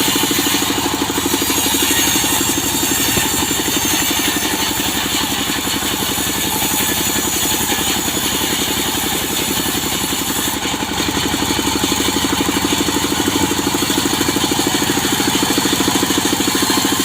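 Engine-driven saw running steadily with a fast, even pulse while cutting teak wood into boards, easing slightly about ten seconds in.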